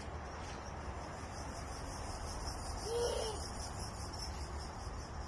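Backyard outdoor ambience: a steady low rumble with a faint, high, pulsing insect-like chirring. About three seconds in comes one short, low, hoot-like call.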